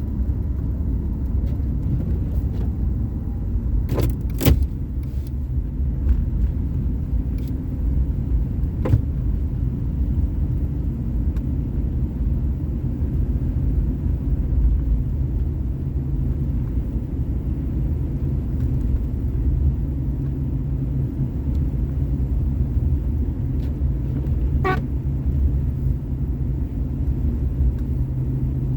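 A car driving, with a steady low rumble of engine and road noise. A few short sharp clicks or knocks stand out, two in quick succession about four seconds in and another near the end.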